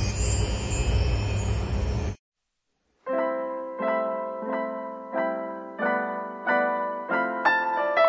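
A glittering chime shimmer over a loud noisy rush, the sound of an animated logo intro, cuts off about two seconds in. After about a second of silence, gentle background piano music starts, with notes about every 0.7 seconds.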